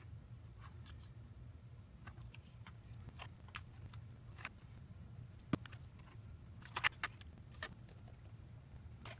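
Faint handling noises: scattered light clicks and taps of fingers pressing glued paper shutters onto poster board and the poster board being lifted and flexed, with the sharpest click about halfway through and a few more a second later, over a steady low hum.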